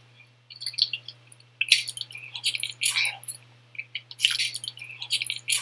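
Close-miked ASMR mukbang eating sounds: wet, sticky smacking, chewing and squelching of a seafood boil in cheesy Alfredo sauce, in irregular clusters of clicks, over a faint steady hum.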